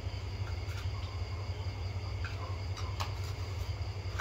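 A few light clinks of spoons against plates and bowls, over a steady high insect chirr and a low hum.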